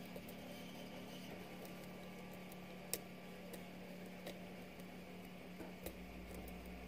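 Faint, scattered ticks and clicks of a lock pick and tension wrench working the pins inside a pin-tumbler lock, with a sharper click about three seconds in and a few more later, over a low steady hum.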